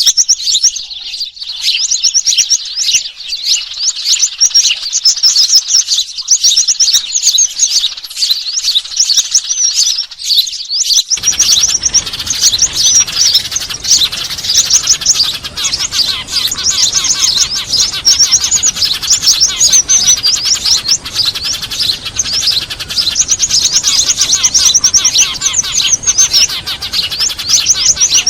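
A bird-lure recording of many small birds calling noisily at once: dense, rapid high chirps and chattering trills that overlap without pause. About eleven seconds in, a steady background hiss comes in beneath the calls.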